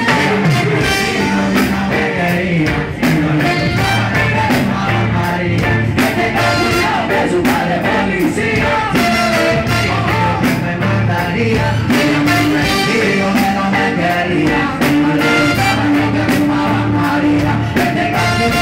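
Music with a steady beat and a voice singing over it.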